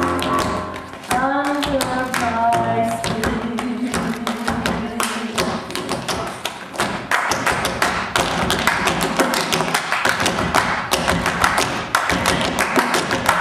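Tap shoes of several dancers striking a wooden stage in fast, dense rhythmic patterns, with live music behind them. A pitched melody sounds over the first few seconds; after that the taps dominate.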